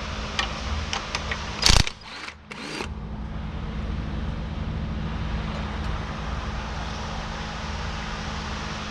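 A few light metallic clicks of hand tools on the tractor's frame bolts, then one short, loud clatter a little under two seconds in, over a steady low hum that carries on alone for the rest of the time.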